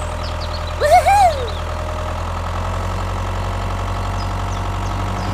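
Small engine running steadily at idle with a fast, even ticking, joined about a second in by a short pitched sound that rises and then falls.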